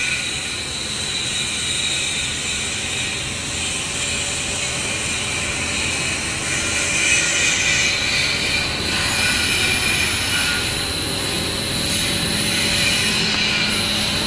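CAT6 cable production line machinery running steadily under test: continuous mechanical noise with a steady high whine.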